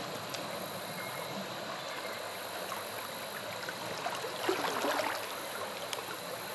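Small spring creek running steadily, with a brief splash in the water about four and a half seconds in.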